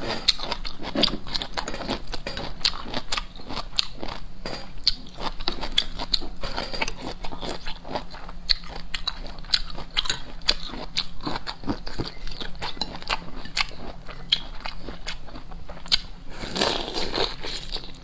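Seafood being eaten close to the microphone: a steady run of irregular bites, crunches and chewing clicks, with a louder rustling, crackling burst near the end.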